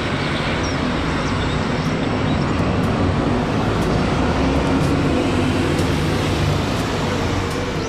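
Double-decker bus engine running as the bus drives along a street, with steady road-traffic noise.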